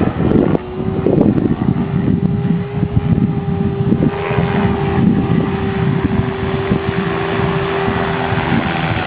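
Helicopter running, with a rough, fluttering low rumble and a steady whine that starts about half a second in and stops shortly before the end.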